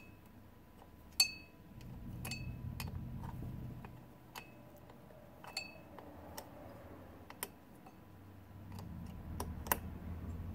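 Small hand wrench working a bolt out of a Model T transmission drum: scattered sharp metallic clicks and clinks, a few of them ringing, with the low rustle of hands on the part.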